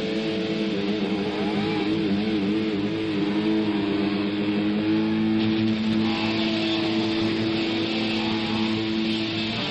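Rock background music with an electric guitar playing wavering, bent notes, then holding one long sustained note.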